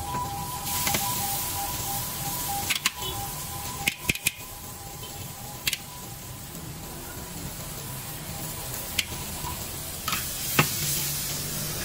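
Ingredients sizzling in a large aluminium wok over a street-stall burner, a steady frying hiss broken by scattered sharp clicks of the metal spatula against the wok.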